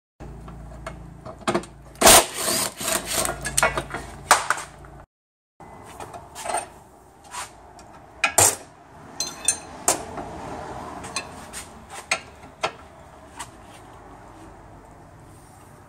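Cordless impact wrench rattling briefly on a 13 mm suspension nut. Then ratchet clicks and the clink of steel hand tools on metal as the remaining nuts are undone.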